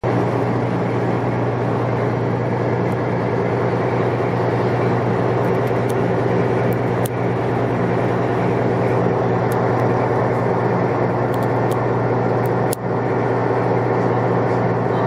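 Sightseeing boat's engine running steadily, heard on board: a constant low drone with an even rushing noise over it.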